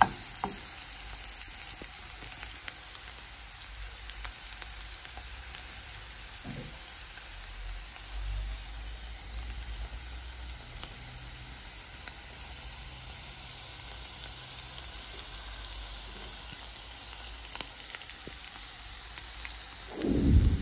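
Diced onion and green chilies sizzling steadily in oil in a frying pan. Near the end there is a louder, sudden burst as more vegetables go into the pan.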